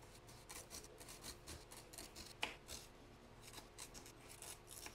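Kitchen knife slicing through a red onion on a wooden cutting board: a run of faint, irregular cuts and taps of the blade on the board, one sharper tap about halfway through.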